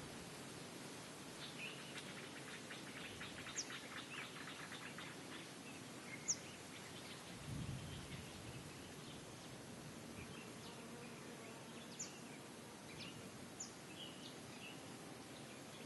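Birds chirping over steady background noise, with short, high, downward-sweeping calls every few seconds and a fast trill a few seconds in. A brief low rumble comes about seven and a half seconds in.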